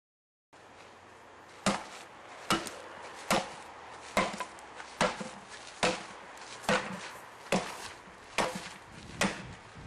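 Axe chopping wood: ten sharp, evenly spaced strikes, a little more than one a second, starting about a second and a half in. Each strike has a short fading ring.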